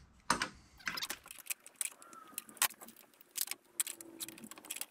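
Irregular light clicks and metallic taps from a circular saw fitted with a beam cutter attachment being handled and turned over by hand.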